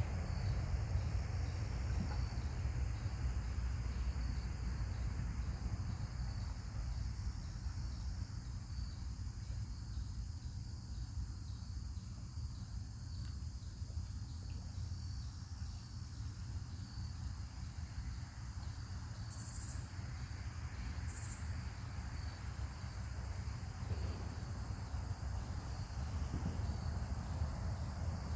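Insects chirping in a steady, evenly pulsing chorus, with a constant low rumble underneath and two brief high buzzes a little past the middle.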